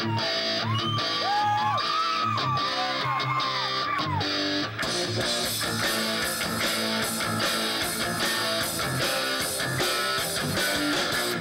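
Heavy metal band playing live: distorted electric guitars, bass guitar and drums. For the first few seconds a lead line slides up and down in pitch over the band, then the band plays on in a dense, steady riff.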